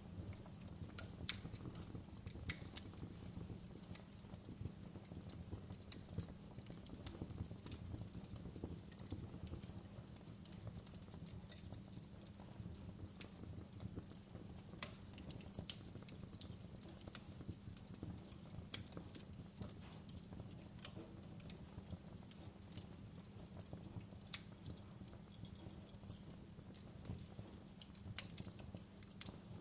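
Wood fire crackling: irregular sharp pops and snaps, one louder pop about a second in, over a steady low rumble.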